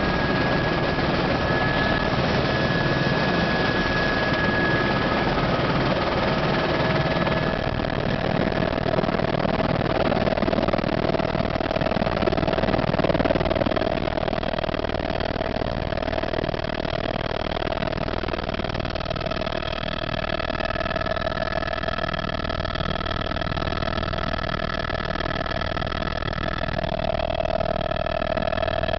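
Eurocopter AS350 A-Star helicopter's turbine and rotor heard from inside the cabin, running loud and steady through lift-off and climb-out. The turbine's whine tones shift about seven seconds in, and more whine tones join about twenty seconds in.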